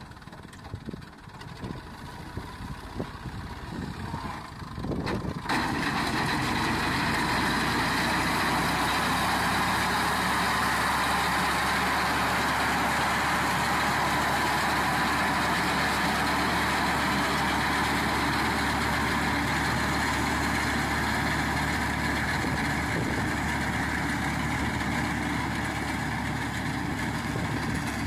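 Massey Ferguson MF 260 tractor's turbocharged diesel engine running under load as its front-mounted reaper cuts standing wheat. It is fainter and uneven at first. About five seconds in it becomes suddenly louder and steady, heard close up with the reaper's cutting clatter over the engine.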